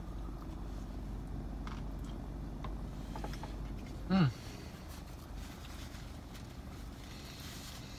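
A man chewing a mouthful of sandwich, with faint mouth clicks and a short falling "mmm" hum of enjoyment about four seconds in, over a steady low background hum.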